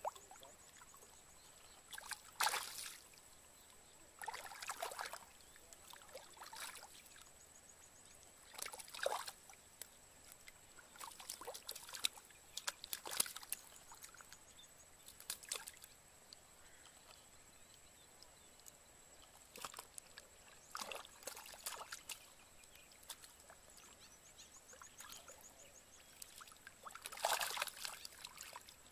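Hands splashing and sloshing in shallow muddy water as fish are grabbed and flop about, in short irregular bursts every few seconds, loudest near the end. A faint steady high-pitched tone runs underneath.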